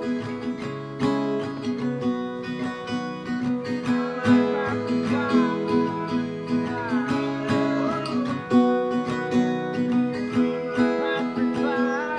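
Acoustic guitar music: strummed chords, with a melody line that slides and bends in pitch around the middle.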